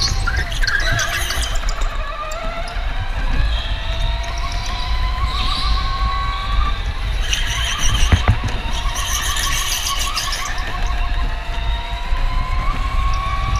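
Electric go-kart's motor whining under way, its pitch gliding down over the first few seconds and climbing again near the end, with tyres squealing through the corners and a heavy steady rumble from the kart. A single knock about eight seconds in.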